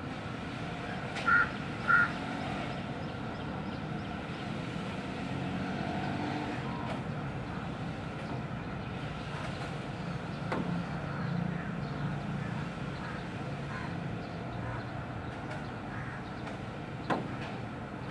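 Steady hum of distant traffic. Two short, high chirps come just after a second in and again at two seconds, and a sharp click comes near the end.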